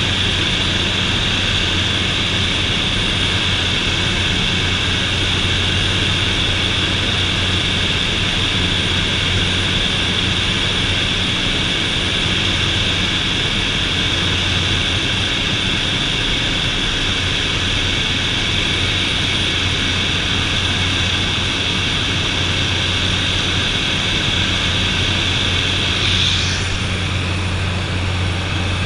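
Cabin noise of a de Havilland DHC-3 Otter turboprop in flight: a steady low propeller drone with a high turbine whine over it. Near the end the whine falls away, leaving the drone.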